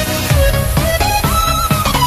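Background music with a steady beat of about two thumps a second under a melody that slides in pitch.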